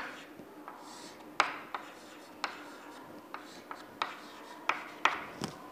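Chalk writing numerals on a chalkboard: a faint series of short, irregular taps and scrapes, about ten in all.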